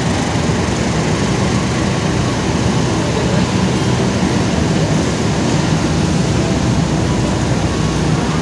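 Long-distance passenger train pulling out of the station, a steady rumble of wheels and running gear rolling on the rails.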